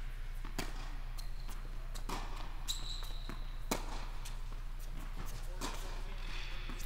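Tennis rally on an indoor hard court: the ball is served and struck back and forth, four sharp pops of racquet hits and bounces spaced about one and a half to two seconds apart, echoing in the hall. A short high squeak comes about three seconds in, over a steady low hum.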